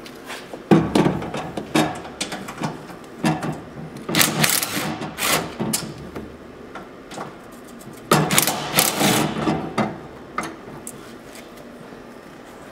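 Tools unbolting the cross support of a UTV frame: three bursts of rapid, clattering clicks, starting about a second in, around three to four seconds in, and around eight seconds in, with quieter metal handling between them.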